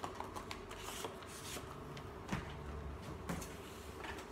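Faint handling of small cardboard retail boxes: scattered light taps and rustles, with a couple of sharper clicks about two and three seconds in.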